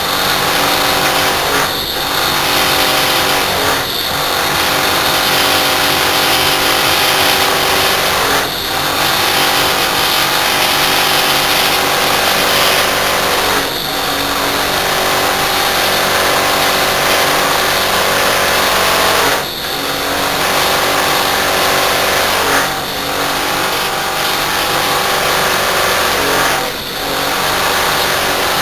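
Rotary air-conditioner compressor running overloaded, pumping air against a sealed high side with a harsh rattling drone. Short dips and knocks break the steady run every few seconds.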